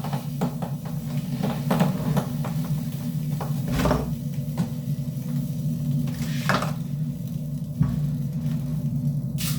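Kitchen prep: scattered knocks, clicks and clatter of dishes and utensils being handled, with a few louder knocks, over a steady low hum.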